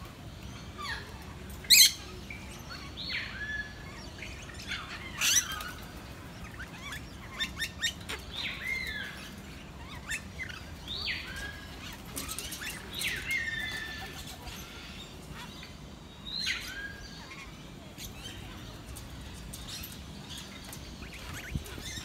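Lories and lorikeets calling at a feeding station: short, shrill squawks scattered throughout, many dropping in pitch, with a few harsher, louder screeches in the first few seconds.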